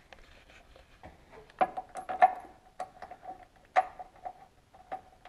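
Metal tools and bolts clicking and clinking against the engine mount under a Honda Civic, in an irregular run of sharp metallic clicks, some with a short ringing note.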